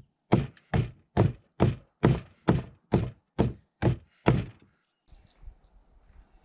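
About ten heavy knocks struck in a steady rhythm, a little over two a second, stopping about four and a half seconds in.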